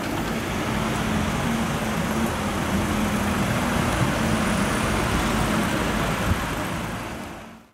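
Street traffic noise: cars and buses running along a busy road, a dense steady rumble with a low steady hum through the first few seconds. It fades out at the very end.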